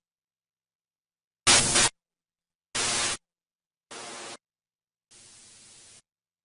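Four bursts of static hiss from a DVD menu soundtrack, about a second and a quarter apart, starting about a second and a half in. Each is fainter than the one before; the first is the loudest and shortest, the last the longest.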